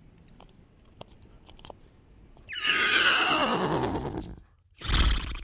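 A man imitating a horse's whinny with his voice: one loud call that slides down in pitch over about two seconds, followed by a short, loud snort-like blow near the end.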